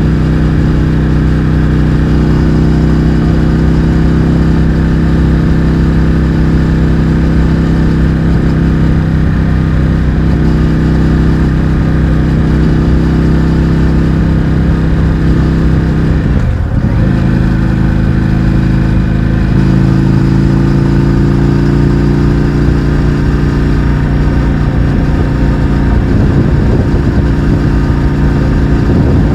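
Indian FTR 1200's V-twin running at steady cruising revs through an Akrapovic exhaust with the baffles removed. Its note briefly dips sharply and picks up again about two-thirds of the way through.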